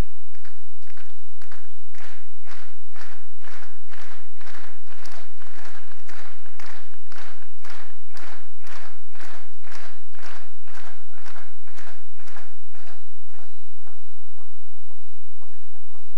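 A large crowd clapping in unison to a steady beat, about two and a half claps a second, led by a performer clapping on stage. The claps weaken and fall apart near the end.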